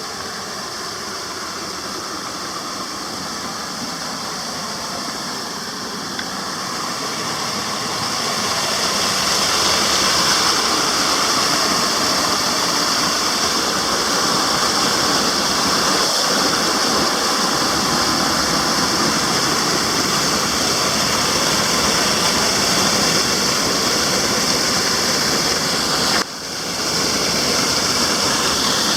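Waterfall rushing: a steady hiss of falling water that grows louder about a third of the way in and then holds, with a brief sharp dip near the end.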